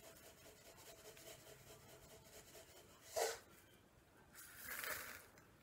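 Near silence with faint room tone, broken by a brief knock about three seconds in and a soft rustle just before five seconds: small handling sounds at a kitchen table.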